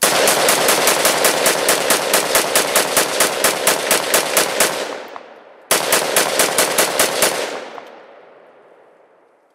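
AR-15 rifle fired rapidly, about four shots a second: a string of around twenty shots, a pause of about a second, then a shorter string of about seven. Each string trails off in a long echo.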